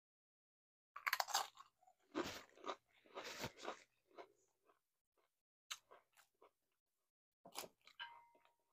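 Close-miked chewing of crunchy tortilla chips. Loud crunches for about three seconds, starting a second in, then softer chewing in short spells, with a last cluster of crunches near the end.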